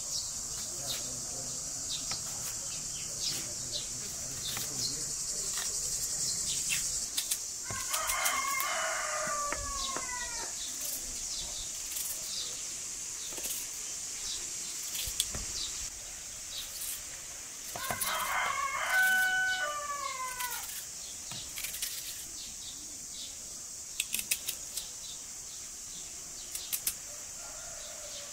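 A rooster crows twice, about eight seconds in and again about ten seconds later; each crow lasts about two seconds and the second is louder. Under it runs a steady high drone of insects, with scattered knife clicks as an onion is peeled and sliced on a plate.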